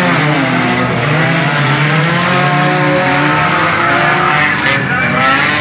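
Several junk-car engines running hard at once, their pitches rising and falling as the drivers rev and lift.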